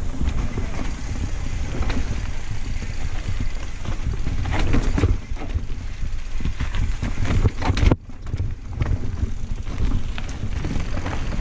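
Wind buffeting an action camera's microphone while a Santa Cruz Blur cross-country mountain bike rattles and clicks over dirt and rocks at speed downhill. There is a sharp knock about eight seconds in.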